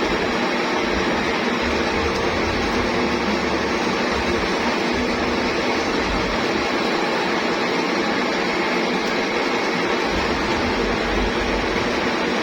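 Lathe running steadily, a continuous mechanical hum with a noisy whirr.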